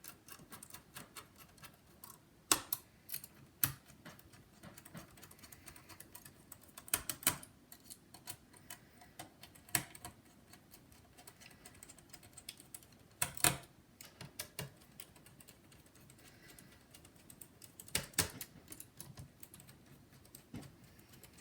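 Irregular small clicks and taps of a precision screwdriver driving the CPU heatsink screws into a laptop's metal frame, with a few sharper knocks in between.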